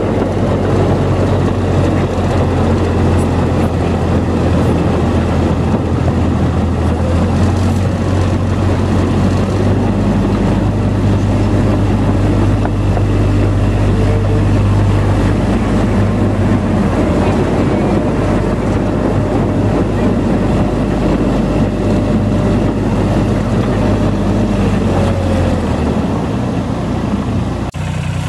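Ride-on miniature locomotive's engine running at a steady pitch over the rumble of its wheels on the track, heard from the car just behind it. Near the end it cuts abruptly to the engine idling, slightly quieter.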